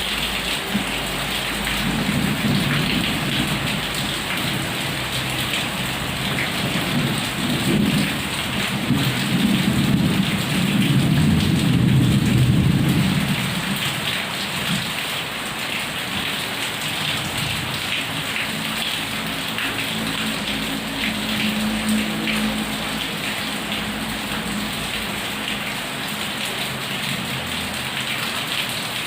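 Heavy rain falling steadily, with a long roll of thunder that builds a couple of seconds in, is loudest about halfway through and dies away, followed by a fainter rumble later.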